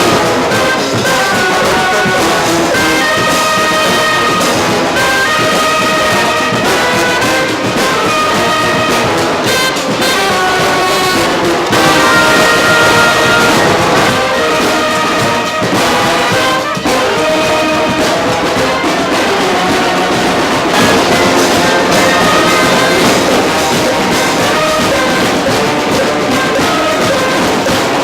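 A small band of horns playing an arranged tune together, holding notes in chords that change every second or so.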